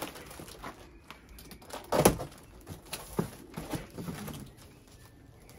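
A taped cardboard box being pulled open and rummaged, with rustling and scraping and a few sharp knocks, the loudest about two seconds in, as a bicycle wheel is lifted out of it.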